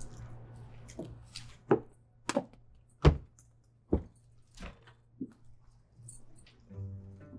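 A run of about eight sharp knocks, a little under a second apart, two of them much louder than the rest. Soft music tones come back near the end.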